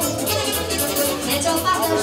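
Music with a steady, fast beat.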